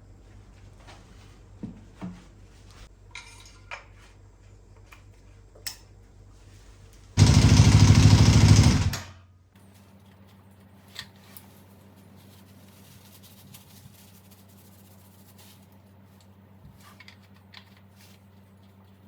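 Scattered light clinks and knocks of tools against metal over a low hum, and about seven seconds in a loud rushing noise lasting about two seconds that cuts off sharply.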